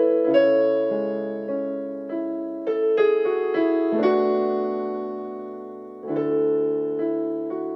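Piano playing the accompaniment to a beginner violin piece: a gentle passage of struck notes and chords, with one chord left to ring and fade for about two seconds before the playing resumes.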